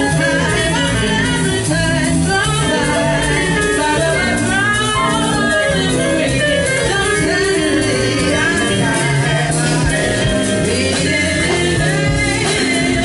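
A woman singing live with a jazz band: keyboard, guitar, electric bass and drum kit playing steadily behind her voice.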